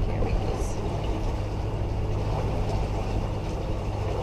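Beneteau 423 sailboat's inboard diesel engine running steadily under way, a low even drone.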